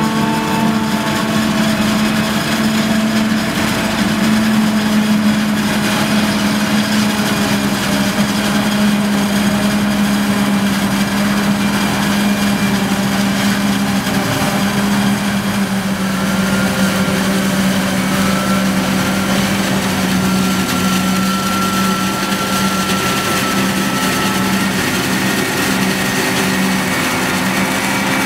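John Deere 8600 self-propelled forage harvester chopping maize, with a Massey Ferguson tractor and trailer running alongside: a loud, steady engine and machinery drone, with a faint high whine coming in around the middle.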